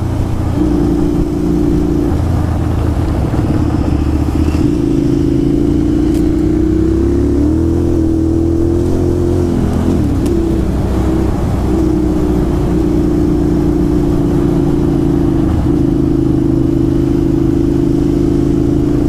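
Motorcycle engine running under way on a dirt trail, holding a steady note that changes pitch several times as throttle and gears change, with a brief dip about ten seconds in.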